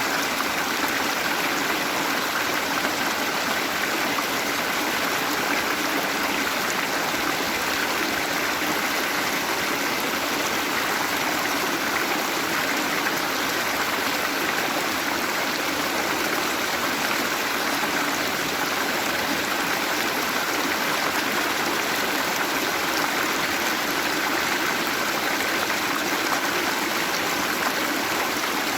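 Waterfall with water rushing and splashing steadily, a dense even rush with no breaks.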